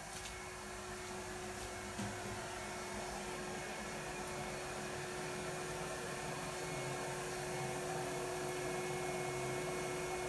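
A machine's electric motor running steadily, a constant hum over a rushing noise that sets in at the start and grows a little louder.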